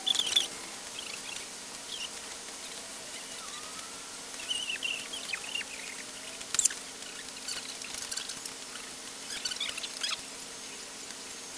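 Sneakers squeaking and scuffing on a smooth floor in short, scattered chirps as someone dances about, with one sharper tap about six and a half seconds in, over a faint steady hum.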